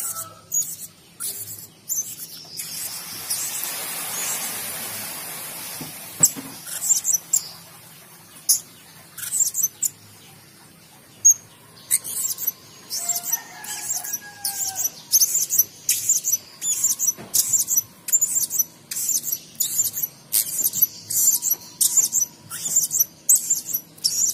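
Blue-crowned hanging parrot (serindit) calling: very high, thin chirps in quick runs of several a second, with a quieter gap about halfway through.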